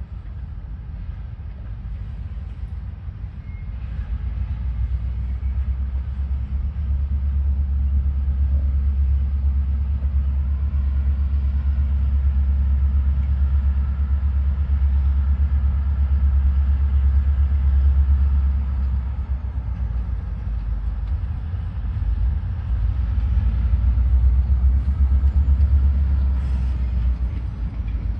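Diesel locomotive engine running in the distance with a deep, steady sound. It grows louder about four seconds in, eases off briefly about two-thirds of the way through, then rises again.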